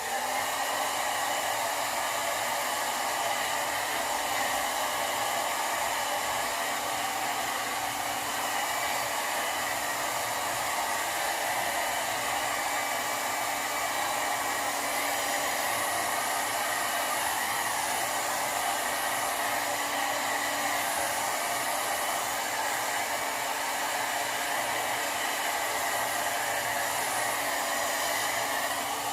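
Sharp IB-WX1 hair dryer running at full airflow, a steady blowing rush that switches on abruptly and holds unchanged while hair is being blow-dried.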